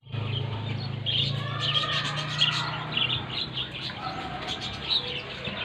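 Small birds chirping repeatedly, with a low steady hum underneath for the first two and a half seconds.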